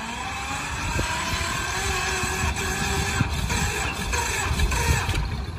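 A mini tractor's small diesel engine chugs under load while belt-driving a wheat thresher, with a steady whine from the spinning thresher over the engine's low beat. The whine climbs a little in pitch over the first couple of seconds.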